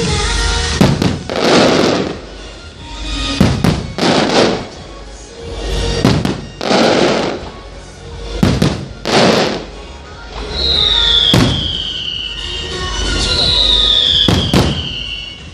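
Aerial fireworks going off: a string of sharp bangs and hissing, crackling bursts, with two high whistles falling in pitch in the second half, over background music.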